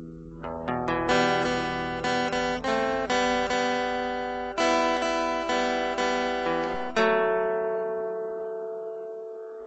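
Background music: acoustic guitar strumming chords, the last chord left ringing and slowly fading over the final few seconds.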